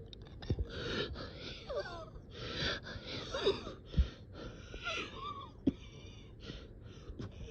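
A person breathing in a strained, labored way, with wavering wheezy whistles on several of the breaths: the shortness of breath of someone unable to get a deep breath.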